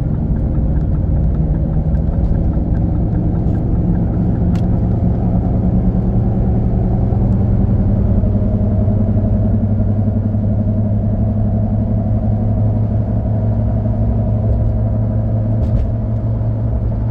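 Cabin sound of a 2009 Ford F-150 with the 4.6 V8 driving on the road: steady engine and road rumble, the engine note rising a little partway through as it pulls.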